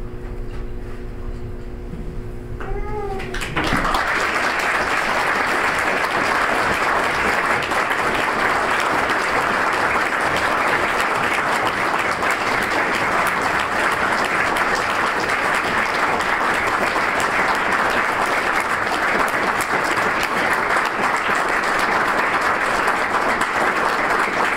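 An audience applauding: long, steady clapping that breaks out about three and a half seconds in.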